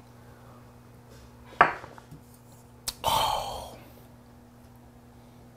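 A shot glass knocks sharply onto a table about a second and a half in, followed by a light click. Then comes a breathy exhale of just under a second that fades out, the sigh after a shot of soju.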